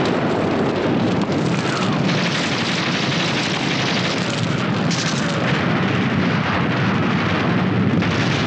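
Battle sound: explosions and gunfire blending into a dense, continuous din.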